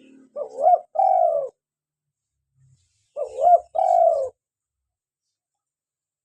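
Spotted dove (tekukur) cooing: two call phrases about three seconds apart, each a short wavering note followed by a longer, falling coo.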